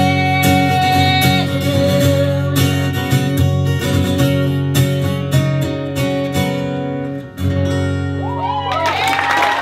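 Acoustic guitar strummed solo, playing out the end of a song, with a short break about seven seconds in before the final chords. Near the end the audience starts whooping and applauding.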